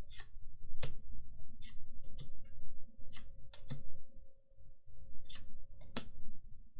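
Paper trading cards from a Magic: The Gathering booster pack being flicked through one at a time, each card sliding off the stack with a short papery snap. There are about nine snaps, irregularly spaced.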